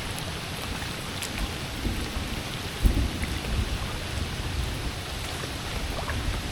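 Heavy rain falling steadily, with scattered drips and low rumbles, the loudest a sharp low thump about three seconds in.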